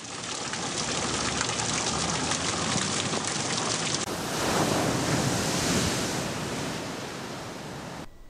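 Steady rushing water noise. It changes character about halfway, swells a little, then fades and cuts off shortly before the end.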